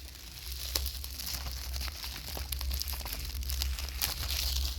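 Thin plastic wrap crinkling and crackling as it is peeled and torn off a 4K movie case, a steady run of small crackles.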